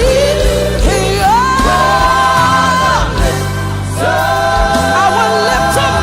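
Gospel choir singing long held notes over a band with bass and drums.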